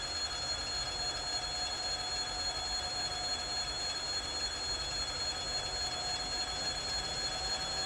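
2TE116 diesel locomotive working as it approaches under power: a steady high-pitched whine from the engine over a low rumble.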